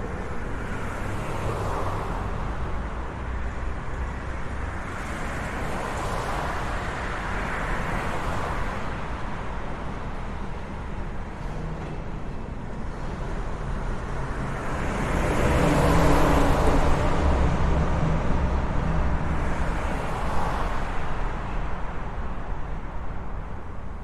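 Road traffic: a steady tyre-and-engine rumble with cars passing one after another, the loudest vehicle going by about two-thirds of the way through with a low engine drone.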